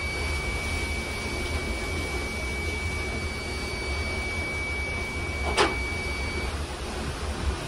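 Steady low machinery hum aboard the steamship Neuchâtel, with a thin high whine that stops about six and a half seconds in and a single sharp click a little before that.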